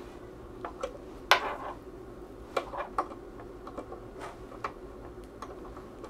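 Small metallic clicks and taps of coax connectors and a 1 dB attenuator pad being handled and fitted to a spectrum analyzer's ports, about ten in all, the loudest about a second and a half in. A faint steady hum lies under them.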